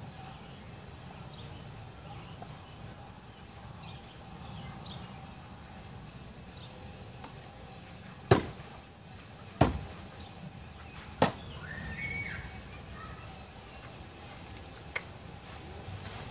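Three Bill Page Bullseye Seeker throwing knives striking a wooden target, each a sharp thunk, the three about a second and a half apart; two of the three stick.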